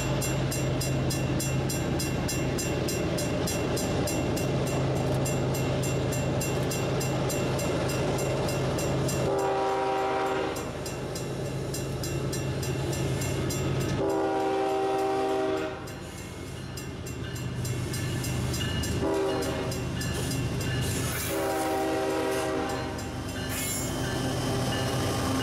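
Grade-crossing bell ringing in rapid, even strokes. Then the horn of Iowa Interstate's GE ES44AC locomotive No. 504 sounds the crossing signal as the train approaches: long, long, short, long. The first blast starts about nine seconds in.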